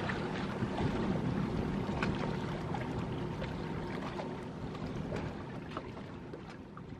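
Harbour water lapping and splashing against hulls and the quay, over a low steady hum, slowly fading.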